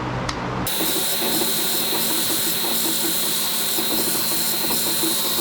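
2x72 belt grinder grinding a steel blade, a loud steady hiss with a high whine that starts abruptly about a second in.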